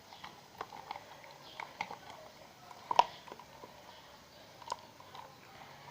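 Homemade slime being handled and kneaded by hand, giving scattered small sticky clicks and squelches, with one sharper pop about three seconds in.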